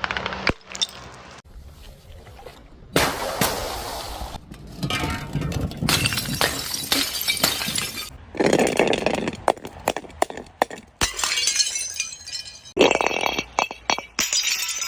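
Glass bottles breaking several times, each a sudden crash followed by the clinking and tinkling of shards.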